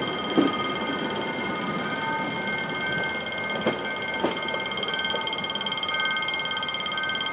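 Passenger train pulling into a station with a steady, high-pitched metallic squeal held throughout, some of it coming and going about once a second, with a few sharp knocks. The squeal cuts off suddenly at the end.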